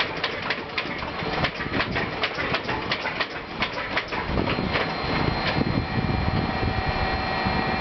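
Shvetsov ASh-82T 14-cylinder twin-row radial aero engine turning over with irregular, uneven firing pops as its propeller winds down to a stop. A steady whine remains from about halfway through.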